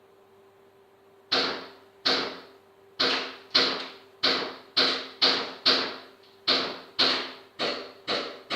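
Airsoft gun fired in single shots: about thirteen sharp cracks, half a second to a second apart, each ringing briefly in the room.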